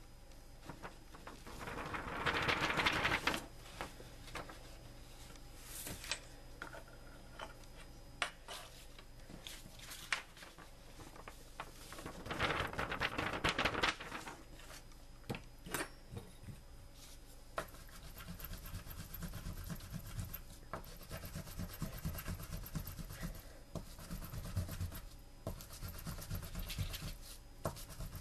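Rubbing and scraping on paper as powdered match heads are handled and then crushed under a hard object, with scattered small clicks. Two longer, louder scraping spells come about two seconds in and again around twelve seconds in, and a lower, steady grinding sets in about two-thirds of the way through.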